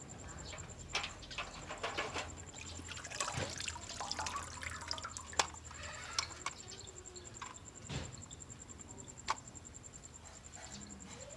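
Scattered light clicks, taps and knocks of small hard toy cars being handled and set down, with a few sharper clicks about five, eight and nine seconds in.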